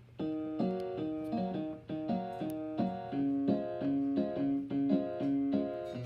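Piano being played, a simple tune of short single notes at about three a second, starting sharply just after the beginning.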